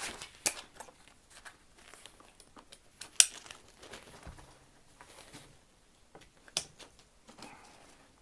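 Backpack fabric and straps rustling and crinkling as a pair of inline skates is fastened into the pack, with a few sharp clicks, the loudest about three seconds in.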